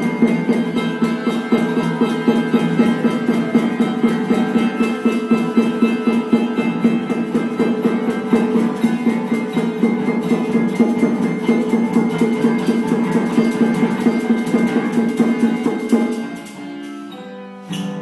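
Live acoustic instrumental: fast, steady strumming on an acoustic guitar with bongos and a harmonica holding a sustained chord. The piece stops about sixteen seconds in, leaving a few single ringing notes and one last hit.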